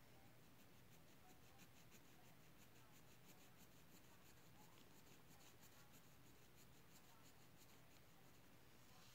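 Faint, rapid scratching of a pen on paper in quick, even strokes as a drawing is colored in.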